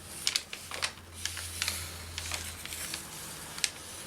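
Irregular light clicks, taps and rustles of painted paper flowers and craft supplies being handled on a tabletop, over a low hum that stops about two-thirds of the way through.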